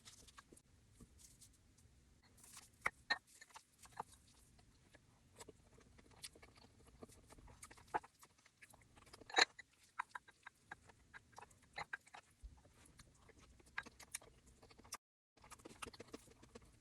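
Close-miked eating sounds: chewing with many short, crisp clicks and crunches at irregular intervals, the loudest about halfway through. The sound drops out entirely for a moment shortly before the end.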